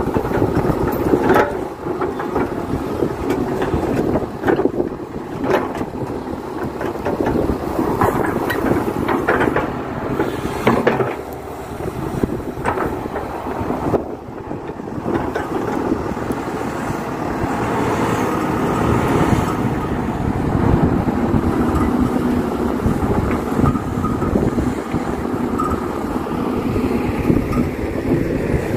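KATO hydraulic excavator at work: its diesel engine runs steadily under load while the bucket digs and moves soil. Scattered knocks and scrapes come through over the engine.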